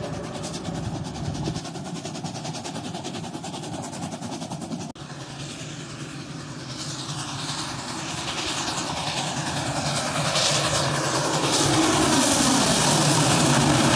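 Double-headed narrow-gauge steam train approaching along the track and passing close, getting steadily louder from about five seconds in and loudest near the end.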